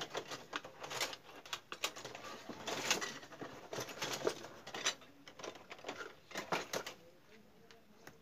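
Irregular clicks, light clatter and rustling of small electronic parts and hand tools being handled on a workbench, going quieter about seven seconds in.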